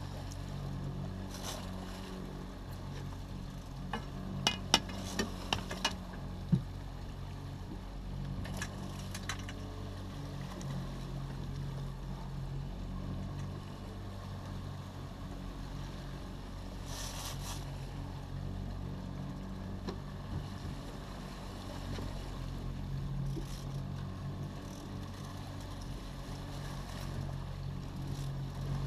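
Boat's outboard motor running with a steady hum over the wash of water, and a short run of sharp clicks about four to six seconds in.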